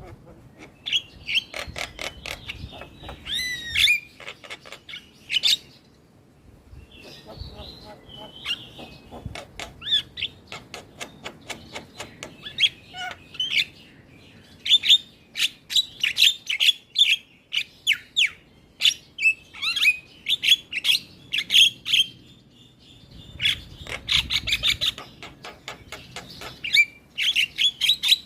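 Javan myna (jalak kebo) singing continuously: a busy run of rapid clicks, chatters and short sharp whistled notes, with a couple of brief lulls.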